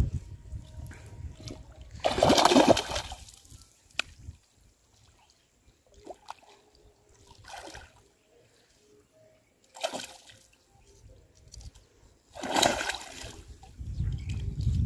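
Hooked giant snakehead thrashing at the surface of shallow marsh water as it is drawn in to be landed: several separate splashes a few seconds apart, the loudest about two seconds in and another long one near the end.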